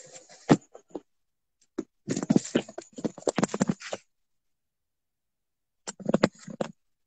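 Handling noise from a smartphone being moved about: bursts of rubbing, tapping and knocking on the phone's microphone, the busiest stretch in the middle and another short burst near the end, with dead silence between.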